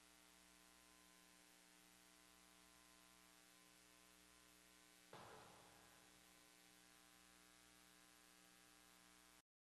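Near silence: a steady electrical mains hum on the audio feed, with one brief thump about halfway through. The sound cuts off abruptly near the end.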